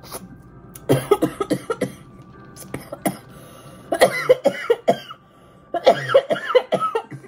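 A woman coughing in three hard fits, about one, four and six seconds in, choking on a mouthful of food.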